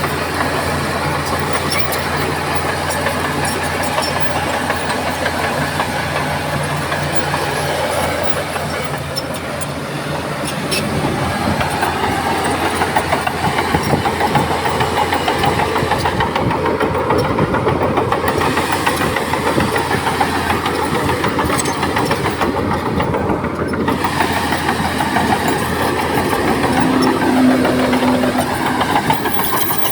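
Bulldozer diesel engine running steadily at first, then working harder and louder from about a third of the way in as the machine pushes soil.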